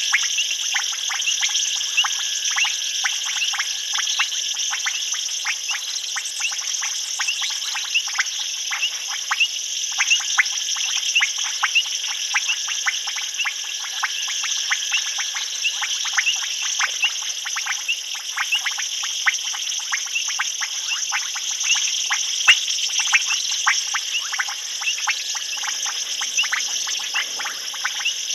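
Chorus of frogs calling at a waterhole at night: many short, clicking calls overlapping in a rapid, irregular stream, over a steady high-pitched insect trill.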